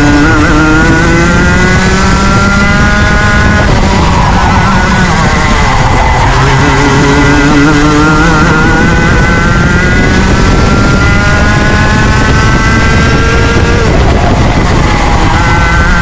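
Junior Rotax kart's 125cc two-stroke engine pulling up through the revs, dropping off about four seconds in, climbing again from about six seconds, and dropping off once more near the end before pulling up again, over a constant rushing noise.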